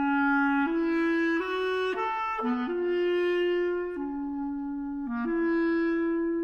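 Solo clarinet playing a slow line of long held notes that move by small steps, each held about half a second to a second and a half, swelling gently in loudness.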